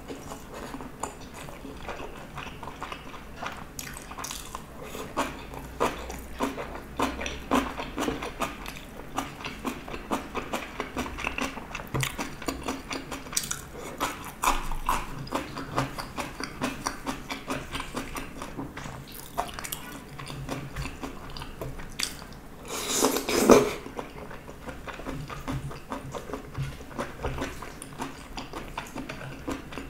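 Chewing and biting of a mouthful of spicy stir-fried gopchang (beef intestine) with vegetables: a steady run of small mouth clicks and smacks. About two-thirds of the way through comes one louder noise lasting under a second.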